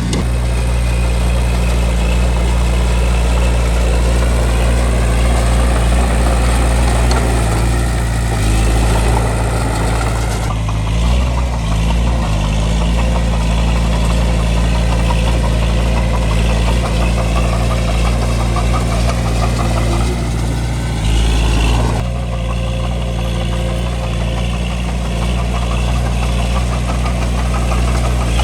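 Bulldozer's diesel engine running steadily as it pushes dirt, a low drone whose pitch dips and rises briefly a couple of times.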